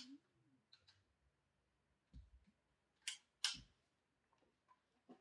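A jigsaw being handled: a few sharp clicks and a dull knock, with near silence between; the two loudest clicks come about three seconds in.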